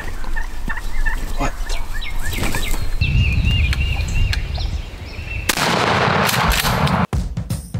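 Wild turkey calling: a run of short yelps, then from about three seconds in a rapid, rattling gobble lasting a couple of seconds. About five and a half seconds in, a loud hiss takes over, broken by a brief dropout near the end.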